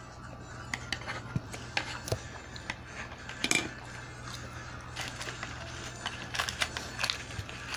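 Chopsticks and utensils clicking and scraping against plates and an aluminium foil tray while eating: many light, irregular clicks over a steady low hum.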